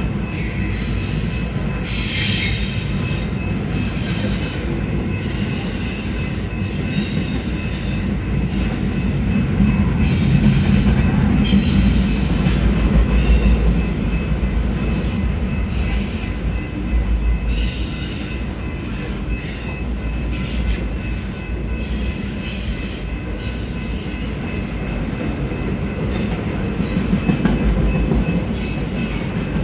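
Norfolk Southern intermodal and autorack freight cars rolling past with a steady low rumble. Short high-pitched wheel squeals come and go every second or two.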